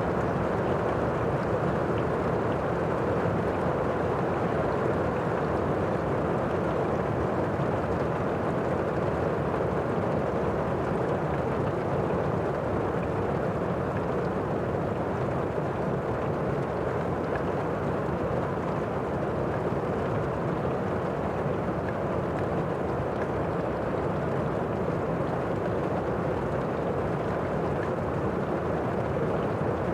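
Heavy rain heard from indoors: a steady, muffled wash of rainfall through walls or a roof, dull and low with little sharp patter.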